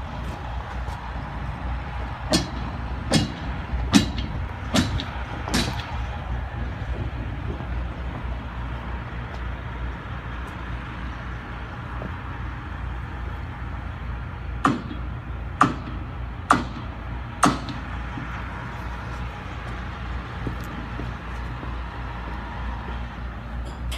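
Footsteps on gravel and steel grating, sharp and evenly paced a little faster than one a second: five a few seconds in and four more about two-thirds of the way through. Underneath is a steady low rumble.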